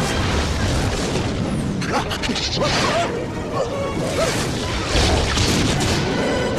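Action-film soundtrack of a collapsing cave: orchestral score mixed with low rumbling, booms, crashes and whooshes, with short high cries in between.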